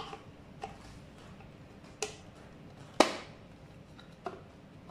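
About five sharp plastic clicks and snaps, spread out, the loudest about three seconds in: the scooter's headlight wiring and plastic stem cover being pressed and clipped into place by hand.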